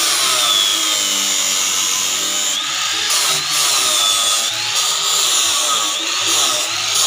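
Electric angle grinder with a disc running against the round wooden rails of a log chair frame, its high whine dipping and recovering again and again as the disc is pressed into the wood and eased off.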